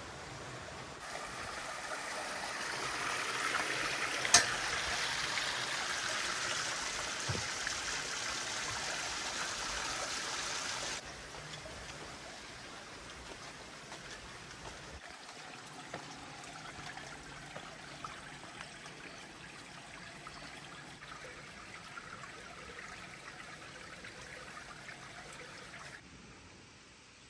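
Running water from a stream, a steady trickling rush. It is louder for the first ten seconds or so, then settles lower, with a single sharp click about four seconds in.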